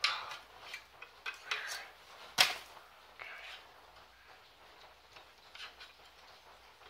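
Light metallic clicks and scrapes of a hand tool working a spring clip on a 2003 Audi A4's front brake caliper, with one loud sharp click about two and a half seconds in and a brief rasp just after.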